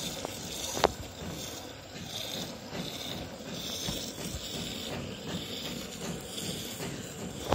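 Goat milk squirting into a metal pot during hand milking: short hissing spurts, one every half second or so as the hands alternate, with a single sharp click about a second in.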